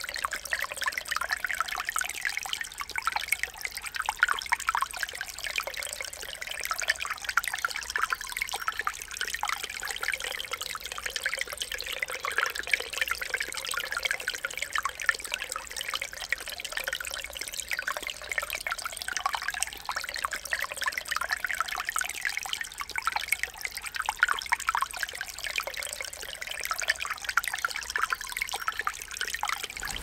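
Small woodland stream trickling and splashing over mossy stones: a steady babble of many small splashes.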